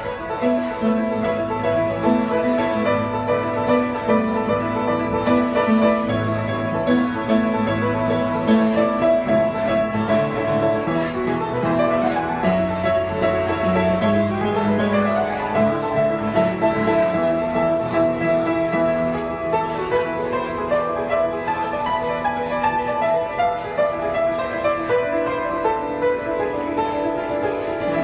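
Solo piano playing a flowing original composition, with rapid repeated notes over sustained bass.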